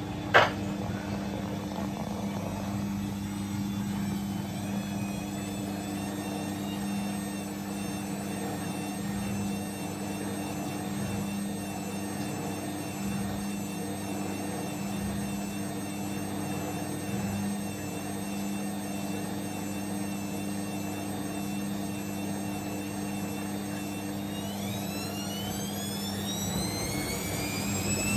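Siemens Siwamat XS 1060 front-loading washing machine spinning its drum, with a steady motor hum. There is a single sharp click just after the start, and near the end a rising whine as the motor speeds up to spin faster.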